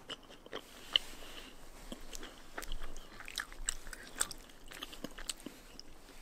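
Close-up eating sounds of someone chewing a mouthful of chewy rice cake and spicy noodles: scattered wet clicks and smacks of the mouth.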